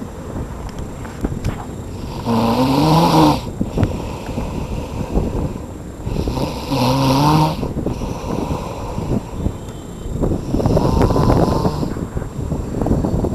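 A man snoring in deep sleep: three long snores about four seconds apart, each lasting roughly a second, the first two rising in pitch as he breathes in.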